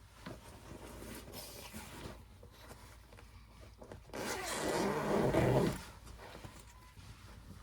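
A cat growling loudly for about a second and a half, starting about four seconds in.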